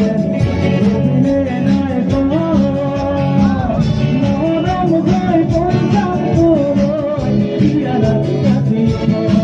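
Live band music with a singer over a PA system: bass guitar, drums and guitar under a sung melody, with a steady beat.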